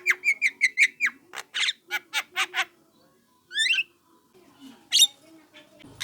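Young Javan myna calling: a quick run of short, harsh calls, about five a second, for two and a half seconds, then after a pause two single calls.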